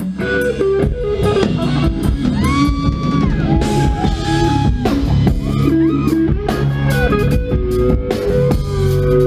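Rock band playing live: an electric guitar solo of held notes that bend up and down, over drums and bass.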